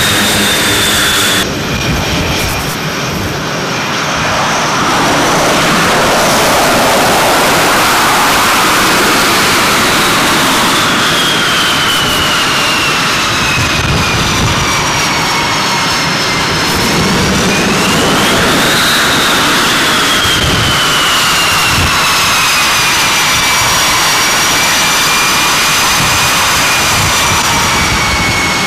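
F/A-18 jet engines running loud, a steady roar with a high turbine whine that slowly falls, climbs briefly about two-thirds of the way through, then falls again as the throttle is worked while the jet is taxied.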